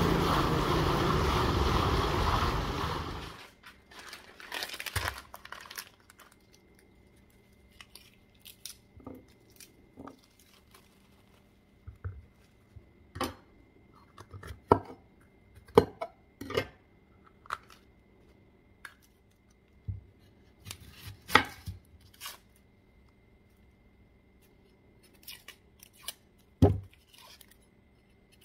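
Song music for the first three seconds or so, then a chef's knife cutting a red bell pepper on a wooden cutting board: irregular sharp knocks of the blade against the board, the loudest a little past the middle and one near the end.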